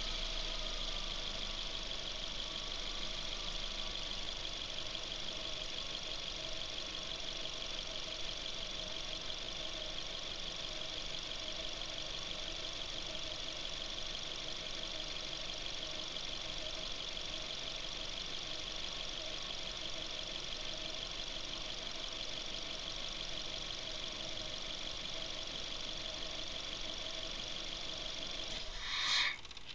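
Suzuki Ignis engine idling steadily. Near the end there is a short louder sound, and then the running sound stops.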